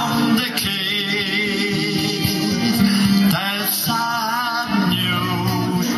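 Man singing a ballad into a microphone, holding long notes with a wavering vibrato, over instrumental backing.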